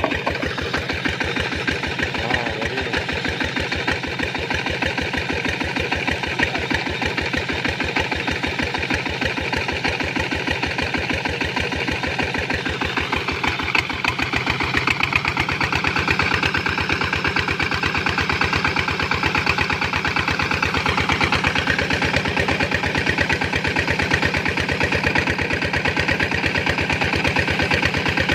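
Single-cylinder diesel engine running steadily with a rapid, even beat of firing strokes. About halfway through, its sound changes and grows slightly louder.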